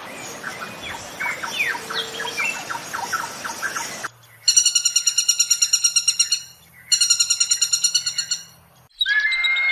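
Bird calls from several spliced clips: a string of quick chirps for about four seconds, then two rapid, evenly pulsed trills about two seconds long each, then a clear whistled song starting near the end.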